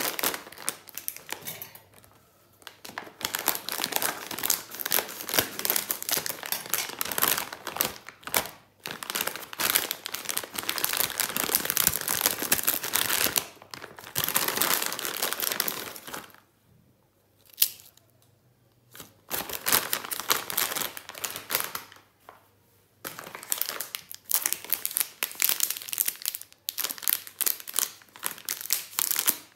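Plastic chip packet crinkling and crackling in hands, then being torn open along its top edge, in bursts with short pauses.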